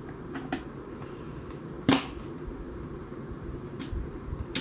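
Small clicks and taps of an Allen key and screw as a screw is driven into the rear of a SABRE M20 blaster shell, with one sharp, louder click about two seconds in, over a steady low room hum.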